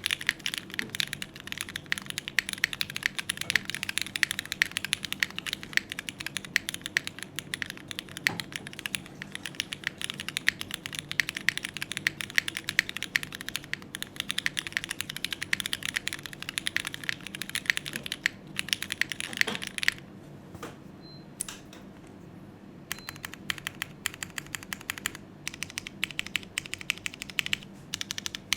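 Typing on a Neo65 Core Plus mechanical keyboard with Cherry MX2A switches on an aluminium plate, gasket-mounted, no foam, and GMK Serika keycaps: a dense run of keystrokes. About twenty seconds in the typing stops for a few seconds, leaving only a few single keystrokes, then picks up again.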